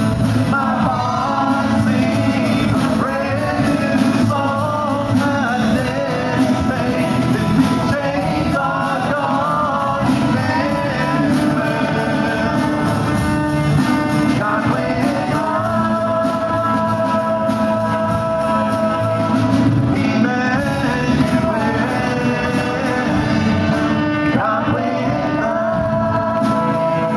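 Live contemporary worship song: women singing into microphones over an amplified band accompaniment, at a steady level.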